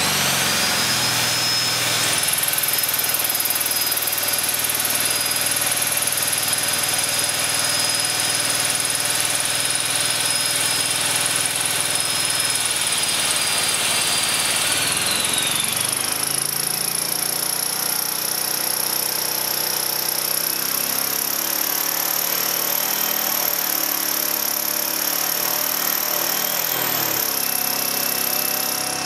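Portable generator's small OHV engine running steadily under load from a corded power tool, whose high motor whine holds steady and then winds down about 15 seconds in while the generator keeps running.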